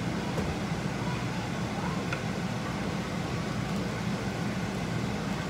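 Pot of lentils boiling on a gas stove over a steady low rumble, with a wooden spoon stirring it toward the end and a few faint clicks.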